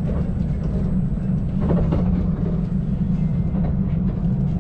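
Steady low rumble of city street noise, with faint brief sounds about two seconds in.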